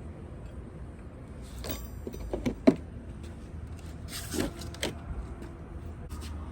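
A few scattered clunks and knocks from car wheels and tools being handled, the loudest about two and a half seconds in, over a low steady hum.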